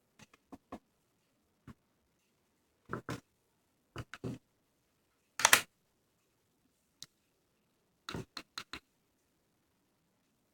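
Scattered clicks and short handling knocks, as of a small plastic dashcam being handled and its buttons pressed while it fails to turn on; the loudest is a brief knock about halfway through, and a quick run of four clicks comes near the end.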